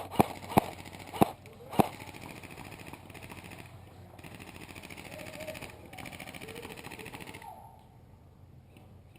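Airsoft rifle fired in single shots: five sharp cracks in under two seconds, irregularly spaced. They are followed by several seconds of muffled, hissy noise that stops near the end.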